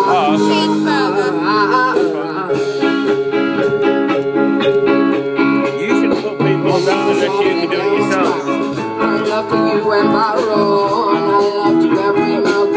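A live band playing a song, with guitar chords under a wavering sung melody line.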